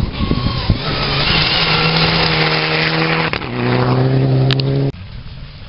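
Rally car on a gravel stage, driven hard through a corner, engine running at high revs with gravel noise under it. The engine note steps down in pitch about three and a half seconds in. The sound cuts off suddenly near the end.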